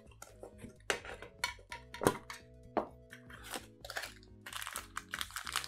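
Background music with sustained chords, over a series of clicks and knocks from small metal card tins being handled and booster packs being pulled out of them; the sharpest knock comes about two seconds in.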